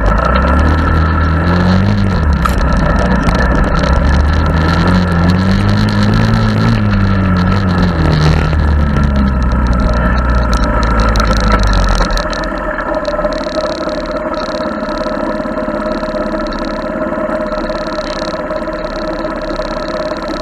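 Honda ATC70's small single-cylinder engine running under way, its pitch rising and falling with the throttle. About twelve seconds in it drops back to a quieter, steady note.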